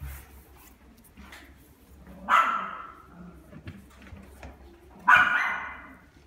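A dog barks twice, two short loud barks about three seconds apart, each trailing off briefly.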